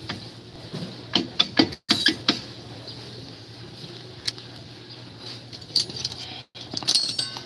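A cast-iron brake drum being worked back onto a van's rear hub and wheel studs by hand: scattered metallic clicks, knocks and scrapes, a cluster about a second in and more near the end.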